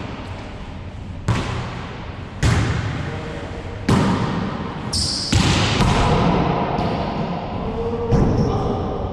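Volleyball being struck and rebounding off the walls and floor of an enclosed racquetball court during a wallyball rally: five sharp, echoing smacks a second or so apart.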